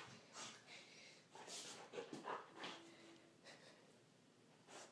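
Dog sniffing and snuffling at a fabric bag up close: faint, short, irregular sniffs.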